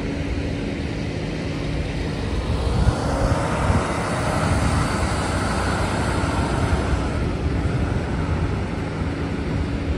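Fire engine driving slowly past close by: its engine and tyre noise swells from about three seconds in and fades away near the end. A steady low hum runs underneath.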